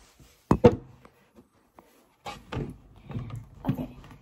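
Handling knocks and thumps: a desk drawer shut with two sharp knocks about half a second in, then a run of duller bumps as the phone camera is moved and set back up on the desk.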